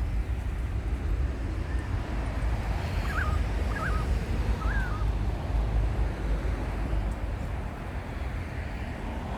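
Wind buffeting the microphone, with a low fluttering rumble throughout. A small bird gives three short chirps about three to five seconds in.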